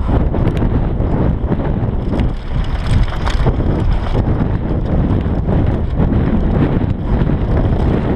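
Wind buffeting the camera's microphone as a Bergamont BigAir downhill mountain bike descends a rough dirt trail at speed. It sounds as a dense, steady rumble from the tyres on dirt, with frequent short rattles and knocks from the bike over the bumps.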